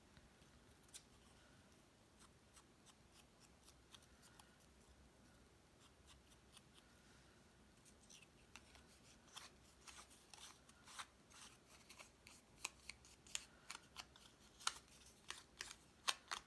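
Faint handling of cardstock pieces: mostly quiet at first, then a run of small sharp clicks and taps from about halfway, coming a few a second and getting louder toward the end.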